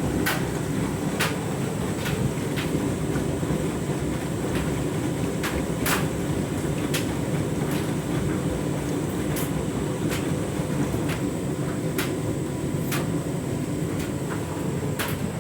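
Candy washing machine drum turning during a deep fabric-conditioner rinse: a steady low rumble of water and laundry tumbling, with sharp clicks about once a second.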